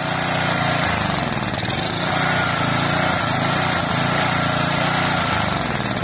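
Pressure washer's small gas engine running steadily at speed.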